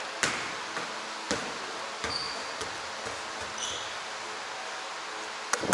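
A basketball bouncing a few times at irregular intervals on an indoor court floor, with brief high sneaker squeaks about two and three and a half seconds in.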